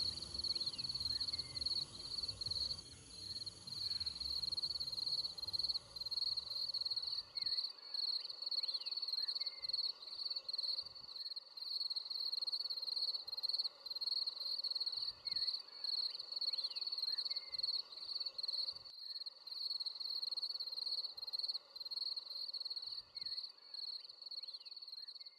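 Forest insects, cricket-like, chirping in a steady, fast-pulsing high trill, with a few faint short chirps scattered over it. A faint low rumble underneath stops abruptly about a third of the way through.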